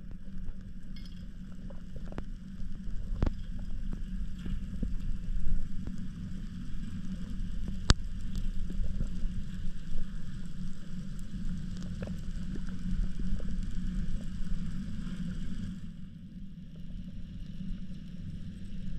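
Underwater sound through a waterproof camera housing: a steady low rumble with scattered sharp clicks and crackle, one click much louder about eight seconds in. A higher hiss drops away near the end.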